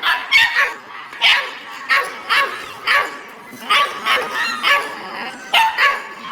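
Many dogs barking together, short overlapping barks coming about once or twice a second, with some higher yips among them.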